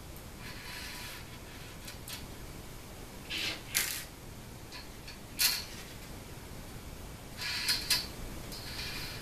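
Small steel bolts and nuts and an aluminium mounting plate being handled during assembly, giving a few light metallic clicks and scrapes: a pair about three and a half seconds in, one about five and a half seconds in, and a cluster near the end.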